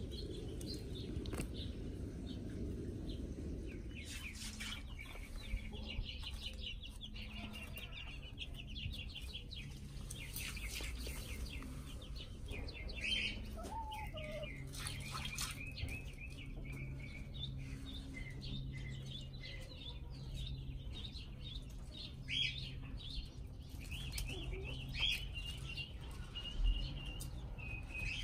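Small birds chirping in quick twittering runs throughout, with chickens clucking now and then. A faint steady low hum runs underneath through the middle part.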